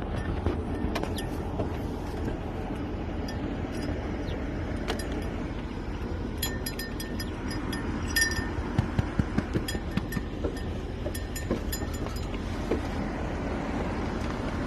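Steady low noise with a run of light metallic clinks and clicks in the middle and later part.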